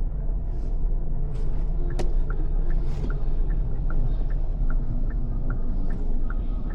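Steady low rumble of a car driving, heard from inside the cabin. About two seconds in there is a click, then the turn-signal indicator ticks evenly, about two to three ticks a second, as the car signals a right turn.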